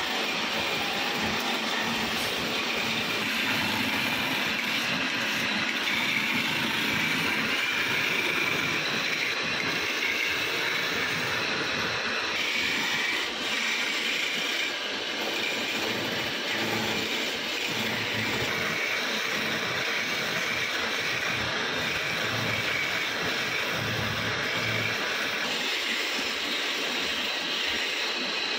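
Wood lathe spinning a wooden spindle while a hand-held turning chisel cuts it: a steady scraping hiss of the tool on the wood over the run of the lathe.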